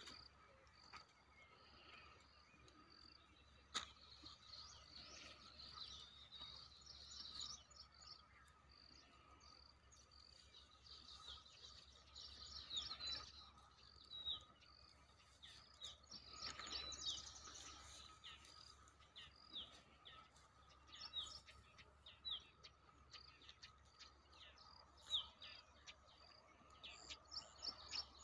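Faint outdoor ambience: small birds chirping in many short, falling calls over a steady, faint, high insect-like hum.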